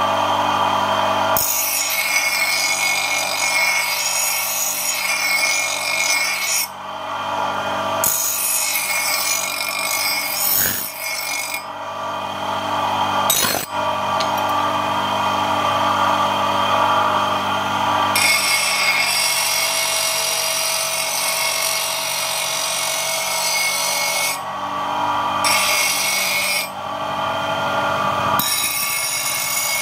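Bench grinder running while a bearing-steel knife blade is pressed against its spinning abrasive wheel. A steady motor hum is heard alone at first, then a loud hissing grind in several passes, with short breaks each time the blade is lifted off the wheel.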